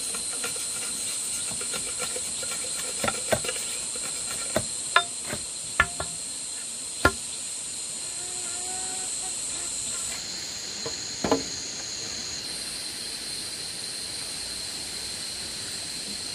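A machete striking a green bamboo pole: about six sharp knocks in the first half, then one more a few seconds later. Behind them, a steady high-pitched chorus of insects.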